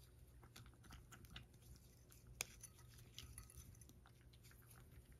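A cat chewing food from a ceramic bowl: faint crunching with scattered small clicks, and one sharper click about halfway through.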